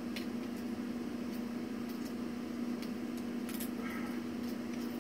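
Faint, scattered plastic clicks from a toy wrist communicator being handled, over a steady low hum.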